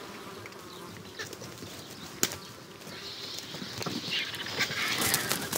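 Griffon and cinereous vultures jostling over a deer carcass: feathers rustling, wings flapping and scattered sharp snaps. It is busiest and loudest in the last couple of seconds.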